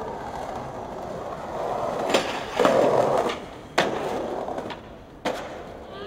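Skateboard wheels rolling, with sharp board clacks: the loudest crack comes about two and a half seconds in, and more knocks follow near four and five seconds.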